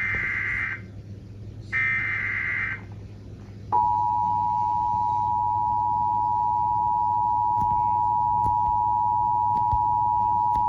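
Emergency Alert System SAME header data bursts, two short screeching bursts in the first three seconds, followed about a second later by the EAS two-tone attention signal (853 and 960 Hz together), a loud steady beep held for the rest. The tones announce that a new alert is starting.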